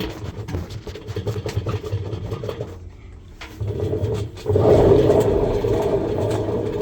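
Samsung washing machine drum turning noisily, the sign of faulty drum bearings; the noise grows louder about four and a half seconds in.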